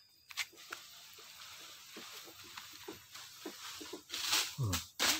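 Footsteps crunching and rustling through dry fallen leaves, with irregular small crackles and two louder rustling rushes near the end. A brief low vocal sound falls between them.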